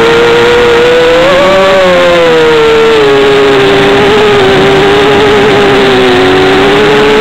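Brushless motors and propellers of a 250-size FPV racing quadcopter whining at one steady pitch over a loud rushing noise. The pitch rises briefly about a second and a half in, then settles lower from about three seconds in.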